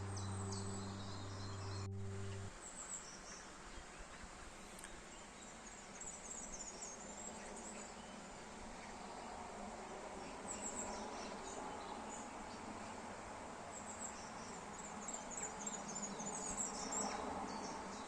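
Background music cuts off about two and a half seconds in, leaving faint outdoor ambience: a steady hiss with many short, high-pitched chirps, growing a little busier near the end.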